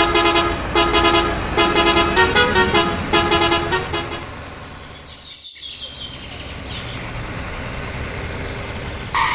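A vehicle horn sounding a run of short, loud honks that step up and down in pitch like a tune, for about four seconds. Then comes a quieter steady hum with faint sliding whines.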